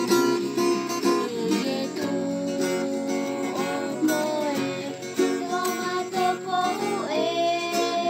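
Acoustic guitar strummed with a voice singing a slow melody over it.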